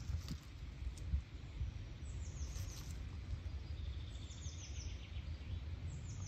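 Woodland songbird singing short phrases of quick, high, falling notes, repeated about every two seconds over a steady low rumble. A couple of faint clicks come about a second in.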